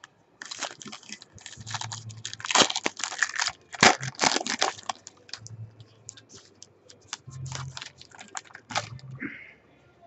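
Foil trading-card pack wrapper being torn open and crinkled: a dense run of sharp crackling and tearing noises that thins out to scattered crinkles in the second half.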